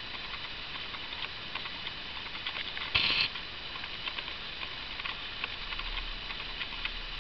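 A cat licking a small dog's fur: faint, irregular small clicks and rasps, with a brief louder rustle about three seconds in.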